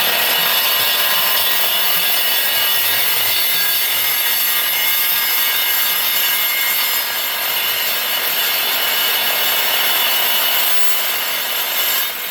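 Evolution Rage 3 saw with a Harbor Freight cold-cut blade cutting through 1x2 cold-rolled steel tube with a 1/8 inch wall: a loud, steady metal-cutting screech full of ringing tones. It tails off near the end.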